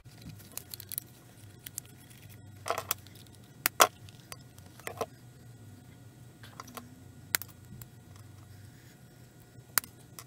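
Scattered metal clicks and clinks of a small wrench working the nuts that hold the tip on a Weller soldering gun, with the tool and loose parts being handled. The loudest click comes a little under four seconds in.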